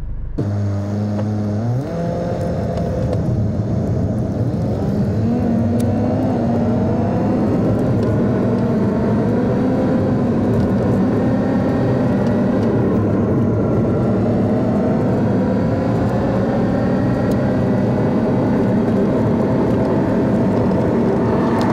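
Car engine and tyres heard from inside the cabin while driving on a gravel road. The engine note rises as it speeds up about two seconds in and again around six seconds, then holds a steady cruise over constant road noise.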